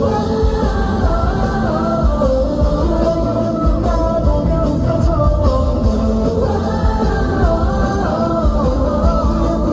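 Live K-pop boy-band concert audio: a male voice singing a ballad-style pop song into a handheld microphone over a backing track with heavy bass.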